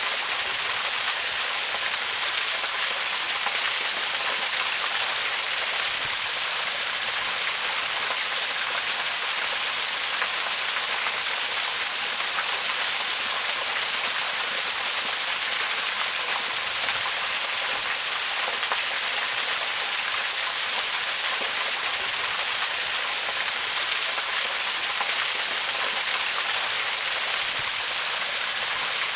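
Waterfall: water falling and splashing in a steady hiss, strongest in the upper range with little low rumble.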